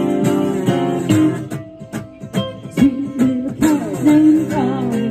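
Live acoustic music: two guitars strummed in a steady rhythm and a woman singing into a microphone. The strumming drops back for a moment about a second and a half in, then her voice comes in over the guitars with a wavering line.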